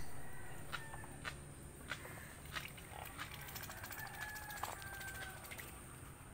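Piglets suckling at a sow lying on her side, with faint short squeaks and clicks scattered throughout.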